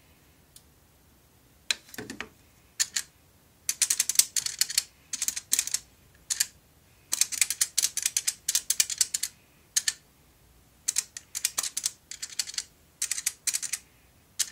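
Metal keypad buttons on a Millennium payphone being pressed, clicking in quick runs of key presses with short pauses between them as a phone number is keyed in.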